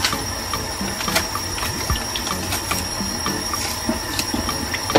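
Tap water running in a thin stream into a stainless steel sink, splashing on a pile of banana peels. Scattered small clicks and snaps come from green banana peel being pulled off by hand.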